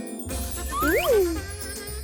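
Bright children's cartoon music with tinkling chime sounds and a steady low beat, with a quick sliding-pitch cartoon effect that rises sharply about a second in.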